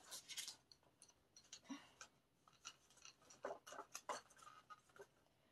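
Faint, irregular light clicks and rustles of small objects being handled and put away, ending about five seconds in.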